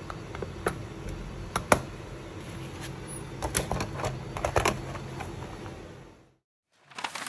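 Desk handling sounds from a plastic pencil case and a spiral sketchbook: scattered clicks and taps, busiest about three and a half to five seconds in, over a faint steady hiss. The sound fades out near the end.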